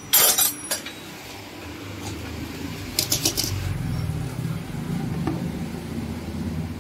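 Pliers clinking and clicking against a motorcycle's metal fuel tap as it is turned off by hand, its knob missing. There are sharp clicks at the start and a quick run of metallic strikes about three seconds in, with a low rumble through the second half.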